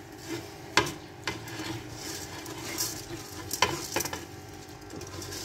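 Soaked rice tipped and scraped off a steel plate into a pot of simmering mutton stock, with a few sharp metal clinks against the pot over the faint steady sound of the stock.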